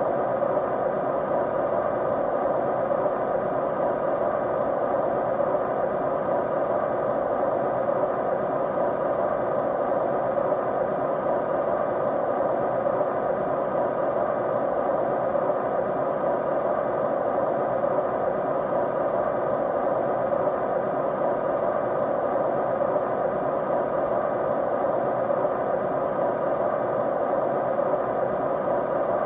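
Steady white-noise sleep sound: an even, unchanging hiss strongest in the middle range, with faint steady tones running through it.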